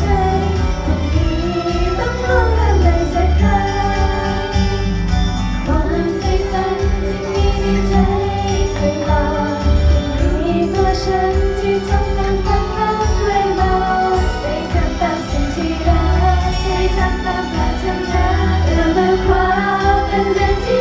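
Female idol group singing a pop song in Thai live into microphones over a backing track with a steady beat, heard through the stage PA.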